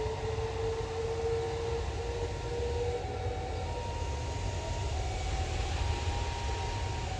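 Boeing 777 jet engines spooling up for takeoff: a steady low rumble with a whine rising slightly in pitch over the first few seconds. Two higher steady tones alternate with it, switching about once a second.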